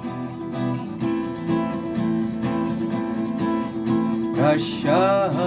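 Guitar strummed in a steady rhythm, playing the chords of a song. Near the end a voice comes in singing a held, wavering note over it.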